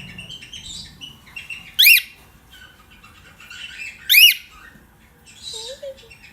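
Pet bird calling: two loud, short, sharp calls about two seconds apart, with softer chirping between them.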